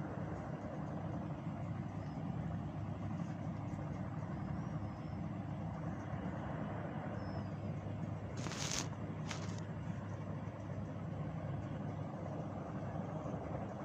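A steady low rumble of background noise, with a few faint high chirps and a short hiss about eight and a half seconds in.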